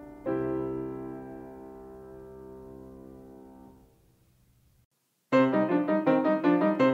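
Background piano music: a held chord that slowly fades away, a brief gap of silence, then a lively run of quick piano notes starting about five seconds in.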